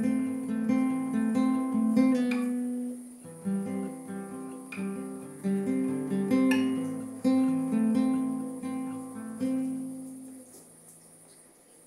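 Music: acoustic guitar picking notes and chords, with a short lull about three seconds in and a fade into quiet over the last couple of seconds.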